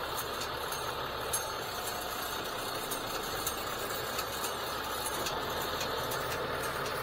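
Boom truck's engine running steadily as its crane lifts a heavy load, with faint scattered ticks.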